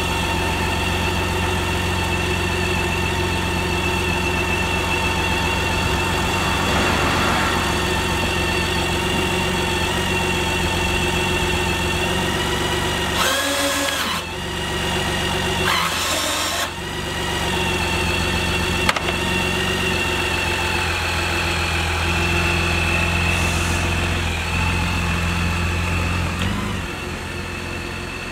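BMW K1600B's inline-six engine idling steadily, with two brief breaks near the middle and a slight rise in pitch near the end as the bike is ridden off.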